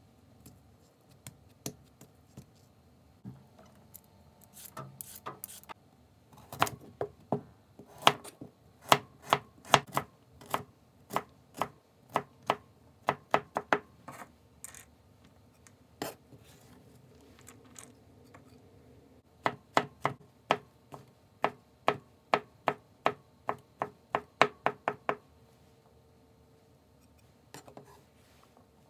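Kitchen knife mincing carrot and mushrooms on a cutting board: sharp knocks about two to three a second, in two long runs with a pause of a few seconds between.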